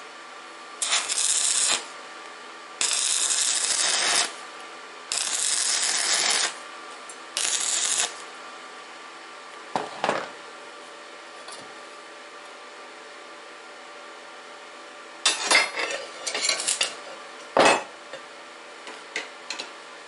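Stick (arc) welding: four short welds, each a second or so of steady crackling hiss, joining lengths of steel bar. Later, several metal knocks and clinks as the steel pieces are handled on the bench.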